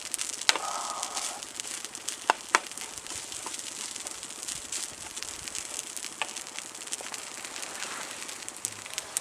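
Frozen dry curry sizzling and crackling in an unoiled pan, with a few sharp clicks, the loudest about half a second in and twice around two and a half seconds in.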